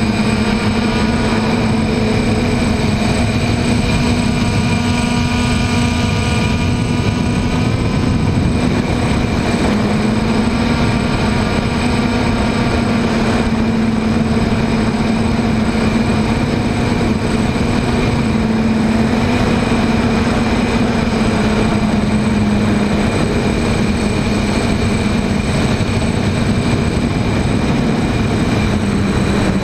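DJI Flame Wheel F550 hexacopter's electric motors and propellers whirring steadily with rushing wind, heard from the camera on board. The pitch shifts a little now and then as the throttle changes.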